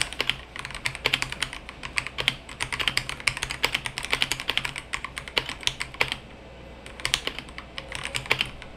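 Typing on an Inplay SK960 full-size mechanical keyboard, with a fast run of key clicks as a test sentence is typed out. The clicks stop about six seconds in, then a short burst follows about a second later.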